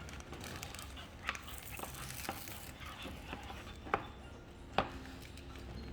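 Slime mixture being stirred in a container, with a few light clicks and knocks of the stirrer against the container's side, the sharpest about four and five seconds in.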